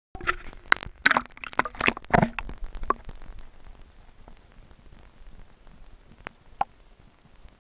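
Splashes and sharp knocks as a camera is plunged into the river water, for about three seconds, then quieter muffled underwater noise with two short clicks near the end.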